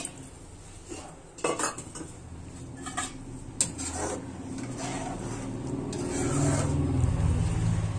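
Metal ladle stirring chickpea curry in a steel kadai, scraping against the bottom and knocking on the side in a run of separate strokes, which give way to a steadier low rumble near the end.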